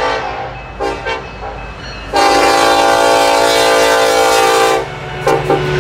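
A diesel locomotive's air horn sounding a chord in blasts: two short blasts about a second in, a long blast of nearly three seconds, then another short blast near the end, over the low rumble of the passing train.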